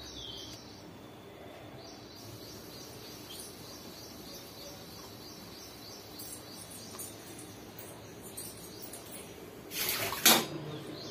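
Low steady household background with faint, quick high chirps repeating through most of it; about ten seconds in, water runs and dishes clatter briefly at a kitchen sink.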